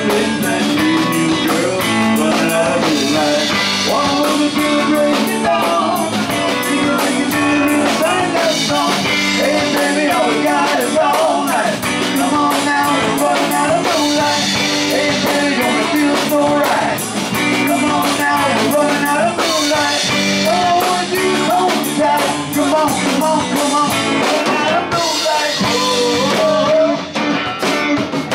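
Loud live band music: electric bass and a drum kit playing a rock-style song, steady throughout.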